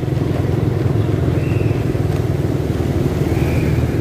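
Motorcycle engine running at a steady speed, a low even hum with no revving.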